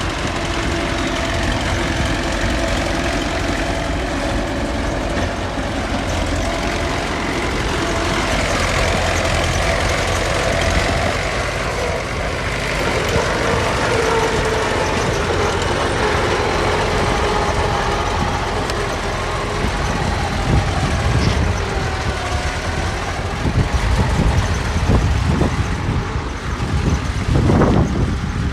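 Heavy diesel earthmoving machinery running under load, its engine pitch shifting up and down. Low knocks and rumbling come in during the last several seconds.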